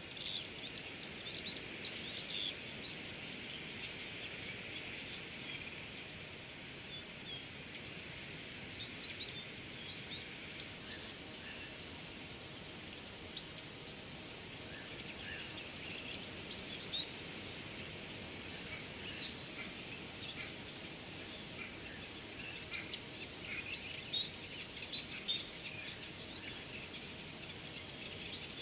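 Bush ambience: a steady, high-pitched drone of insects, with short bird chirps coming and going over it. The drone gets a little louder about eleven seconds in.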